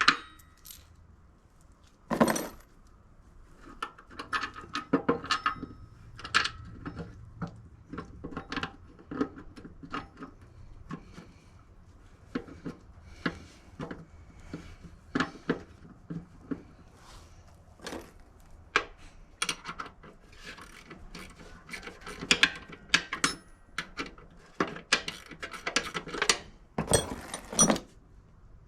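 Metal tools and parts clinking, tapping and knocking in short irregular strikes, with a louder knock about two seconds in and a quick cluster of clanks near the end.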